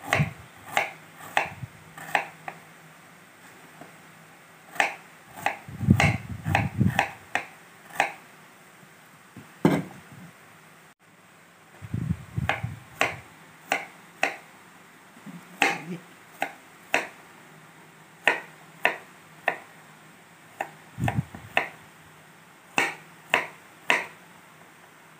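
Kitchen knife blade knocking on a wooden cutting board while slicing shallots and garlic cloves: sharp single knocks at an uneven pace, about one a second, with a few duller low thumps along the way.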